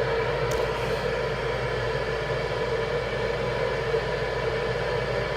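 CB radio receiver giving out steady static on an open skip channel between transmissions, with faint steady tones in the noise.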